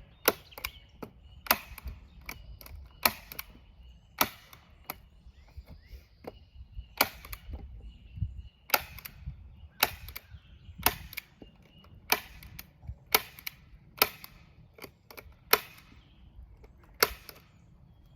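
Hand staple gun firing staples one after another, about one a second, sometimes two in quick succession: sharp clicks as the plastic sheeting is stapled to the greenhouse's wooden frame.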